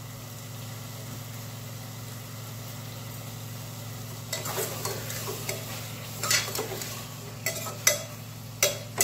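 A metal ladle stirring and scraping potatoes and peas in an open pressure cooker, starting about four seconds in and ending with a couple of sharp knocks of the ladle against the pot, over a faint sizzle of the frying masala. A steady low hum runs underneath.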